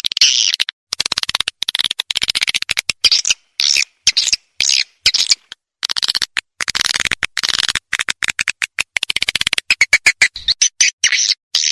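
Recorded edible-nest swiftlet calls played as a lure call ('suara panggil') to draw swiftlets into a nesting house: fast, buzzy chattering trills made of rapid clicks, coming in bursts with short breaks between them.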